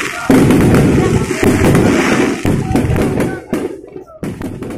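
Aerial fireworks going off in quick succession, a loud dense crackle of bursts and bangs that thins out after about three seconds, with a last cluster of pops near the end.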